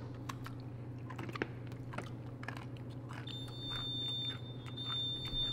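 A person chewing a crunchy iced dog treat: a run of small crisp crunches. From a little past halfway a steady high-pitched electronic tone sounds, breaks off briefly and resumes.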